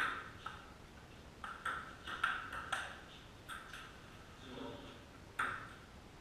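Table tennis ball clicking off paddles and the table during a rally: a quick run of sharp clicks in the first three seconds, then a few more after a pause.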